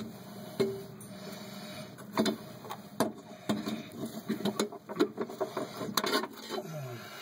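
Irregular sharp metal clicks and scrapes as a small hand tool works at the pin on a fireplace flue damper's handle linkage.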